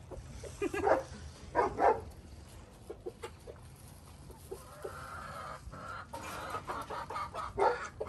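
Chickens clucking, with two louder calls about a second apart near the start and fainter clucks after.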